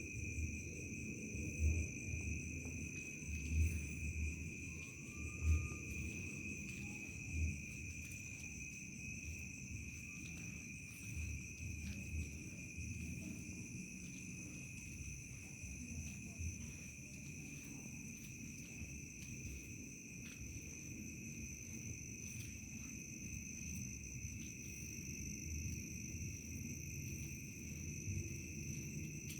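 Crickets trilling without a break at night, several steady high-pitched chirring tones layered together. A few dull low thumps come in the first several seconds.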